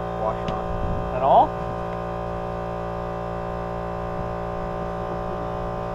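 An engine idling steadily nearby, a constant hum made of many even tones. A short voice sound comes about a second in.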